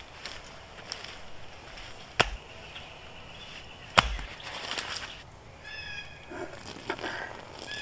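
Two sharp knocks of a wooden stick striking wood, about two seconds apart, with a few lighter knocks between. A bird chirps briefly a little after the second knock.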